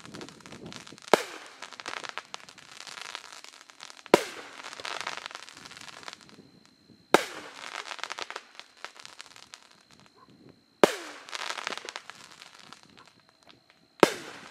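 'Son Of A Gun' consumer firework cake firing aerial shots: five loud bangs about three seconds apart, each followed by a couple of seconds of dense crackling as the burst's stars pop.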